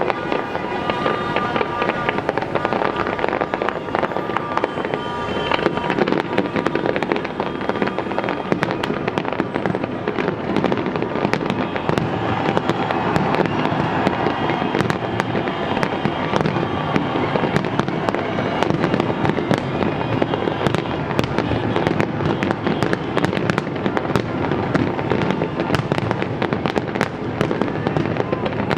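Fireworks display: a dense, continuous barrage of bangs and crackling bursts.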